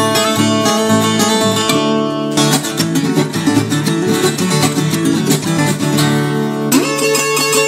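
Instrumental background music on acoustic guitar, plucked and strummed at a steady, lively pace.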